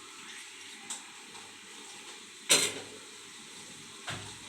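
Chicken and spices sizzling quietly in a kadai, with one loud sharp clink of a lid being set on the pan about two and a half seconds in, and lighter knocks about a second in and near the end.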